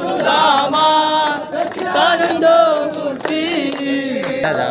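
A crowd of devotees singing an aarti together in long sung lines, with hand claps keeping time.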